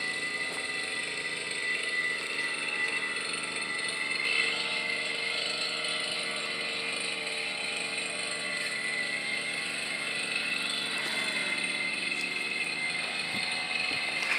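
Brush cutter engine running steadily while trimming plants.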